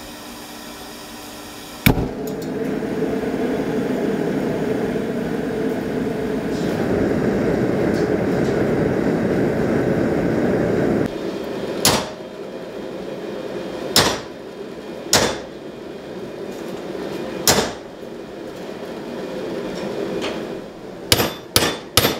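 A gas forge lit with a sharp pop about two seconds in, then its burner running with a steady rushing noise until it cuts off about eleven seconds in. Then hammer blows on hot steel held in a vise, single strikes a couple of seconds apart, and a quick run of blows near the end.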